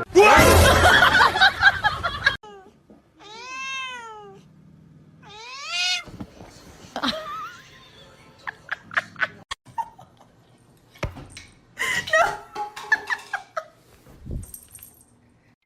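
A cat meowing: two drawn-out meows that rise and fall in pitch, a couple of seconds apart, after a loud noisy stretch at the start. Scattered clicks and knocks follow.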